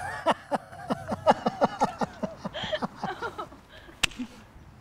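Laughter in quick, repeated 'ha' pulses, each falling in pitch, then the sharp slap of a high five about four seconds in.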